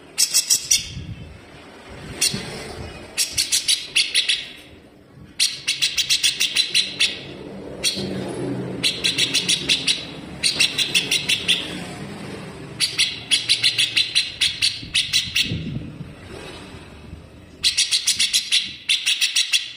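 Grey-cheeked bulbul (cucak jenggot) singing in harsh, sharp bursts of rapid-fire repeated notes. There are about a dozen bursts, each up to about two seconds long, with short pauses between them.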